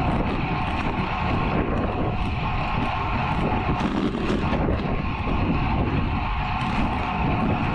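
Steady wind rush buffeting a GoPro action camera's microphone on a road bike riding fast, at about 55 km/h, over smooth tarmac.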